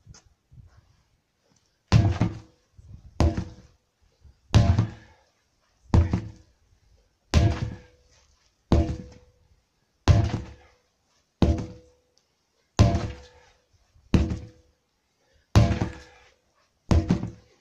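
Sledgehammer striking the top of a stack of tyres in a steady rhythm, a heavy thud about every second and a half. There are about a dozen blows, each with a short ring after the impact.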